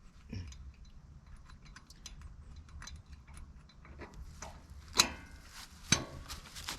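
Metal hitch pins and parts being handled: scattered light clicks and clinks, with two sharp metallic clanks about five and six seconds in.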